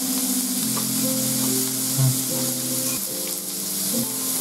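Thin slices of meat sizzling on a hot electric grill plate, a steady frying hiss, with a brief low thump about two seconds in.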